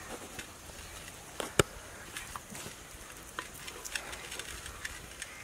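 Light knocks and scrapes of a wooden spatula against a cooking pot, with one sharp knock about a second and a half in.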